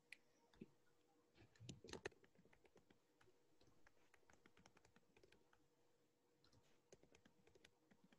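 Faint typing on a computer keyboard: irregular runs of keystrokes, busiest about two seconds in.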